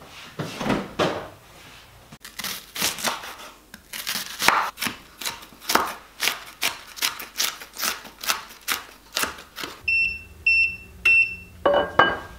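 Kitchen knife chopping onion on a wooden cutting board, a run of quick knocks about three a second. Near the end, three short high electronic beeps from a glass-top hob's touch controls, then a frying pan set down on the hob.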